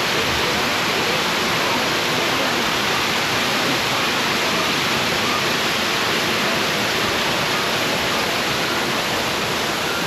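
Steady rush of falling water from an artificial waterfall splashing into a ride's boat channel.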